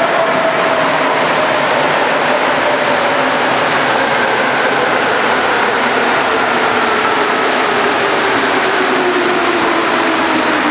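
Montreal MR-73 rubber-tyred metro train pulling into the station and braking. A loud rumble of the train runs under several motor whines that fall slowly in pitch as it slows.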